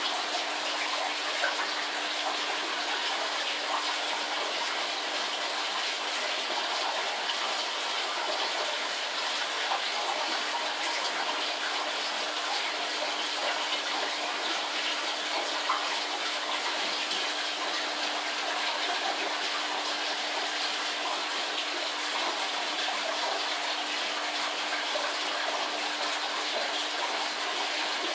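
Aquarium aeration and filter water, a steady rushing and bubbling of water with a faint constant hum underneath.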